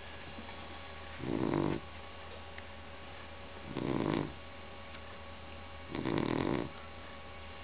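A sleeping shar-pei snoring, three short snores about two and a half seconds apart with each breath.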